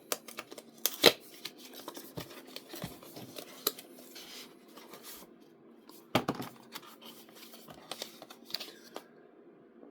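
Product box being opened and its packaging handled: rustling and scraping with scattered sharp clicks and knocks, the loudest about a second in.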